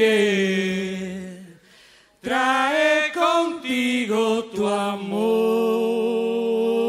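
An unaccompanied melodic line in a live blues performance. One note slides down and fades out, there is a short break about two seconds in, then a run of stepped notes ends on a long held note.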